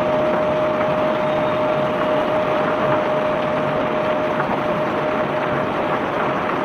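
Steady rushing and rattling of crushed white limestone flowing during barge unloading, over a steady machine whine that fades near the end.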